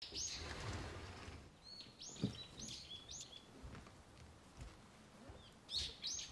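Small birds chirping in short, arching high calls that come in clusters, with one low thump a little after two seconds.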